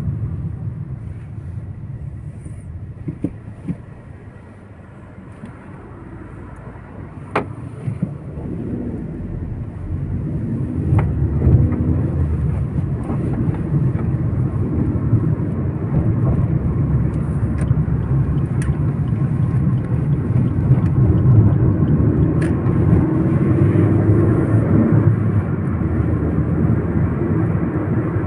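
A car driving, a steady low rumble of engine and road noise that grows louder about ten seconds in, with a few sharp clicks.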